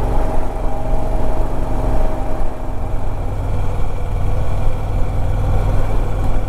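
Harley-Davidson Ultra Limited V-twin engine running steadily, a deep low rumble with a fainter steady tone that fades out about two and a half seconds in.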